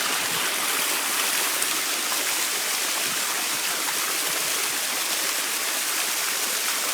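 Waterfall close by: a steady, even rush of falling and splashing water.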